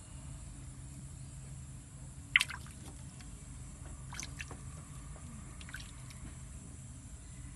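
A few small water drips, the loudest about two and a half seconds in, over a steady low hum and high hiss.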